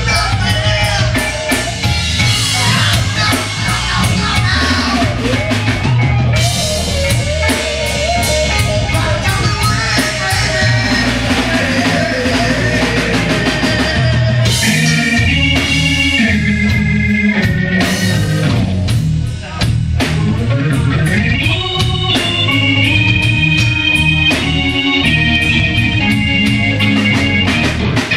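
Live rock band playing loud: drum kit, bass and electric guitar, with a singer on the microphone.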